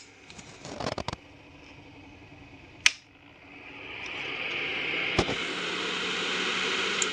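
A few clicks from handling the wiring and switch, then a sharp switch click about three seconds in. The 12-volt DC cooling fan of a homemade kitchen chimney spins up, its whooshing hum rising over a second or so and then running steadily.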